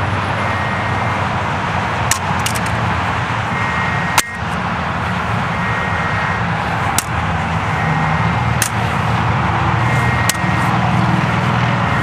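A sledgehammer striking the plastic case of a Linksys WRT54GL wireless router lying on grass, giving short, sharp knocks every second or two. Under the knocks is a loud, steady roar of highway traffic.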